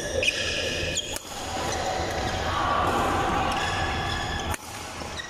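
Badminton rally: a few sharp racket strikes on the shuttlecock, with short high squeaks of players' shoes on the court.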